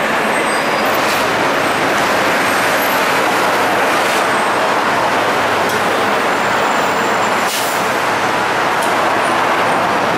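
Dense city road traffic: a steady wash of engine and tyre noise from double-decker buses, taxis and cars, with a brief high hiss about seven and a half seconds in.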